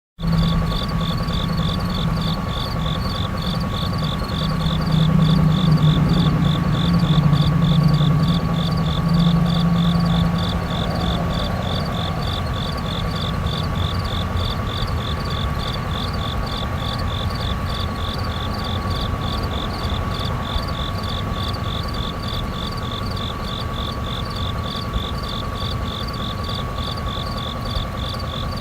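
Crickets chirping in a fast, even pulse over a steady insect drone. A distant airplane passes over: its low hum swells, is loudest about a quarter of the way in, and fades out before the middle.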